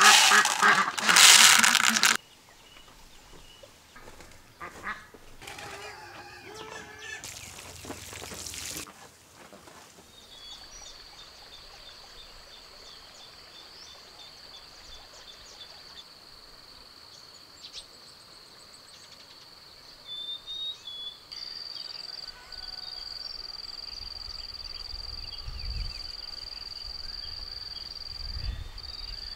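Crinkling of a plastic seed packet being handled and torn open for the first couple of seconds. Then a steady, high-pitched insect drone takes over about ten seconds in and grows louder near the end.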